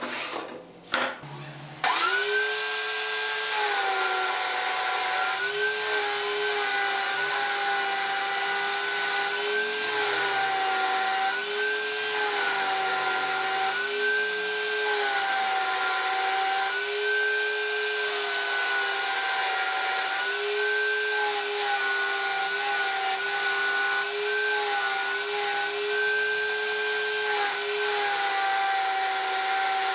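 Wooden chair parts knock together as they are set down on a bench. About two seconds in, a table-mounted drum sander starts and runs steadily, its motor pitch dipping each time a curved wooden piece is pressed against the spinning sanding drum.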